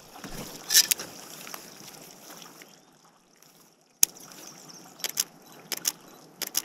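Quiet water sounds around a folding kayak sitting on a calm river, with scattered sharp clicks and knocks from the boat and paddle. There is one loud knock about four seconds in and a quick cluster of clicks near the end.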